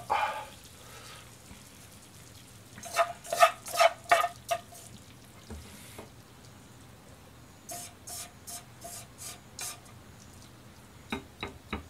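A utensil clinking against a metal pan as spaghetti is lifted out and twisted onto a plate. The sharp clinks come in two runs, about three seconds in and again from about eight seconds, each with a short ringing note, and a few lighter taps follow near the end.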